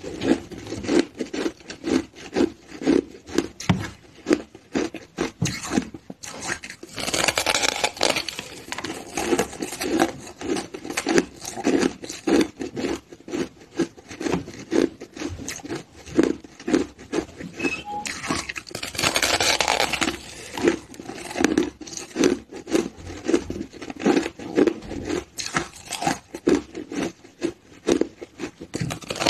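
Mouth-close chewing of crushed ice, a fast run of crisp crunches several times a second, with two longer, noisier stretches of grinding about a third and two-thirds of the way through.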